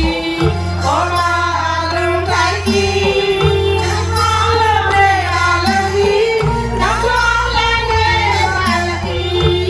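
Women singing into microphones over backing music with a steady bass line.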